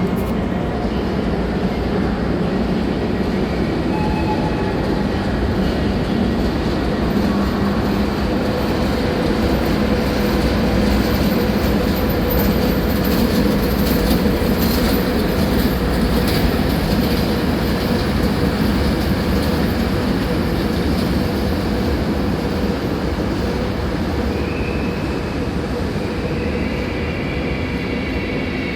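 A train running on the track: a steady rumble of wheels on rails, with a high-pitched tone joining near the end.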